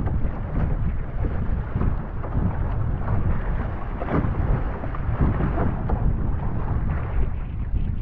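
Heavy, low wind buffeting on the microphone over water rushing and splashing along the hull of a one-person outrigger canoe paddled fast downwind through choppy ocean chop.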